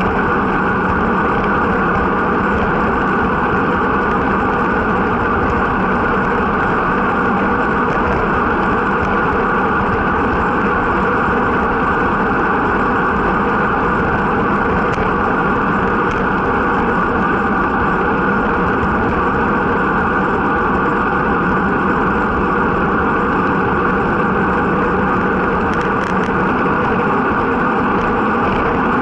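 Steady rush of wind over the microphone of a bicycle-mounted camera, mixed with tyre noise on the road surface, as the bicycle descends at speed.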